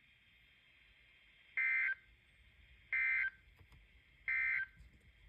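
NOAA Weather Radio Emergency Alert System end-of-message data bursts: three short, identical warbling digital tones about a second and a half apart, marking the end of the severe thunderstorm warning broadcast.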